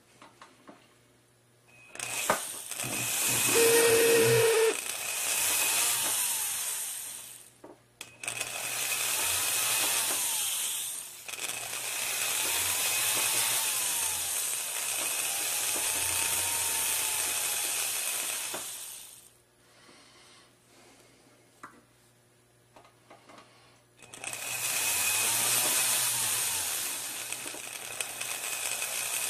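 Jeweler's rotary tool spinning a rubber Cradex abrasive wheel against a ring shank, smoothing the metal. It runs in four bursts, with its speed rising and falling within each run.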